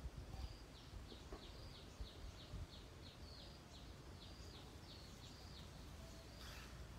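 A bird calling faintly: a rapid series of short, high notes, about three a second, that stops about five seconds in, over a faint low rumble.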